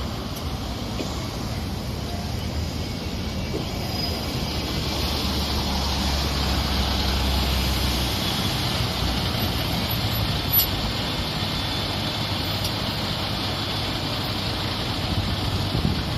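City bus engine running in road traffic, loudest for a few seconds before easing off, with one sharp click about ten seconds in.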